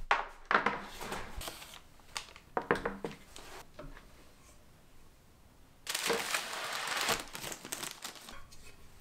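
Baking parchment paper rustling and crinkling as it is handled and laid over rolled dough, in three bursts: near the start, about three seconds in, and a longer stretch from about six to eight seconds.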